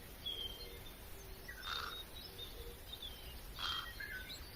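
Faint bird chirps and calls over a low, steady background hum: a few short calls, one about a second and a half in and another near the end.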